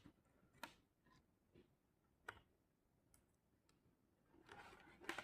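A few faint, isolated clicks spaced a second or more apart, then a brief rustle with one more click near the end.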